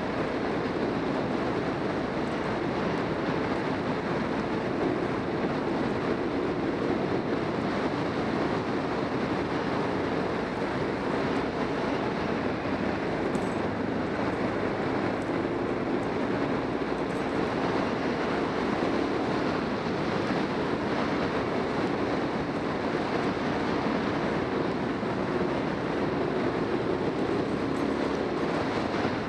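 Motorcycle riding at a steady cruising speed: even engine and road noise mixed with wind, unchanging throughout.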